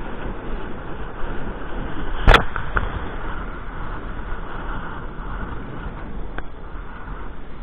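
Wind buffeting the camera microphone and a kiteboard hissing and chattering across choppy water at speed, with one sharp slap a little over two seconds in as the board hits the chop.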